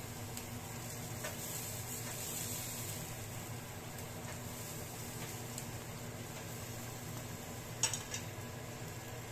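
Chicken breasts sizzling steadily on the wire rack of an electric grill, with a few light clicks of metal tongs and a sharper clack of the tongs against the rack near the end.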